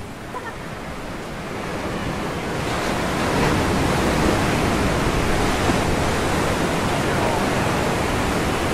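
Ocean surf breaking and washing against a rocky shoreline, a steady rushing noise that swells up about two and a half seconds in and stays loud.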